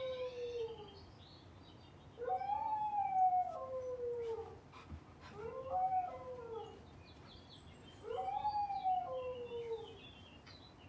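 Bouvier des Flandres puppy howling: four long howls, each sliding down in pitch, with a second howling voice alongside.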